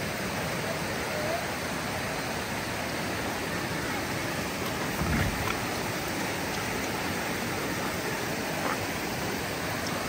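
Shallow stream rushing over rocks and boulders, a steady hiss of running water, with one brief low thump a little after halfway.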